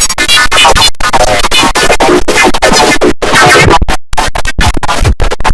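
The IBM OS/2 Warp 3 shutdown sound run through heavy stacked effects: loud, distorted and pitch-warped, chopped into rapid stuttering cuts with sweeping pitch that sounds like record scratching.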